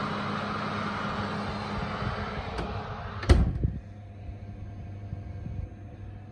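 Electric oven's steady whirring hum through the open door, then the oven door shut with one loud clunk about three seconds in, after which the hum is quieter and muffled.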